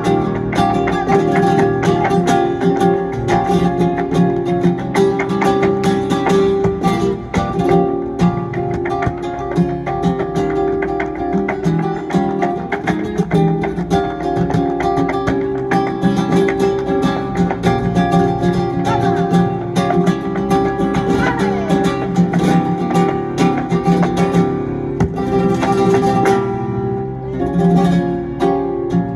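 Live flamenco music: a flamenco guitar played with a woman singing.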